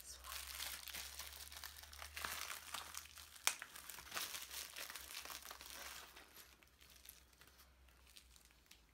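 Thin plastic mailer bag crinkling as it is handled and opened to take out the item inside, with a sharp crackle about three and a half seconds in. The rustling dies down after about six seconds.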